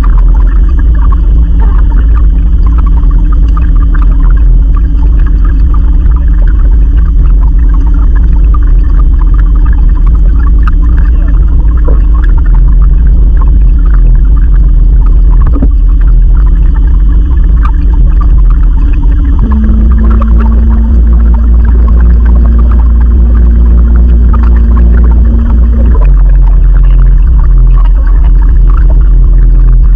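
The canoe's newly fitted motor runs steadily on the water, a loud low hum with a heavy rumble. Its pitch shifts once about two-thirds of the way through and again a few seconds later, as the speed changes.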